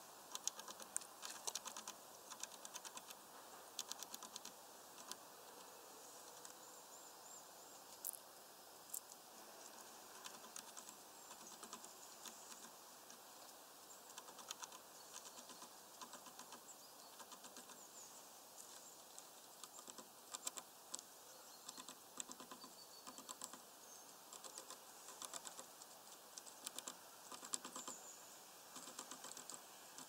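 Eurasian blue tit pecking at peanuts through a mesh feeder net: faint quick taps and clicks in irregular bursts.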